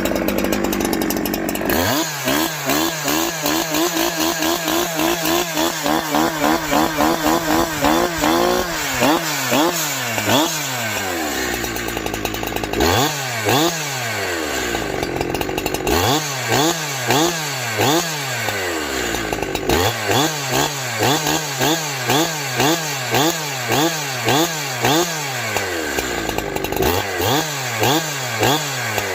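Farmertec Holzfforma G372XP two-stroke chainsaw, warmed up and running cleanly, revved hard again and again: it idles briefly, is held high with the throttle pulsing, then is blipped in quick sets of rising and falling revs with short idles between, picking up without bogging.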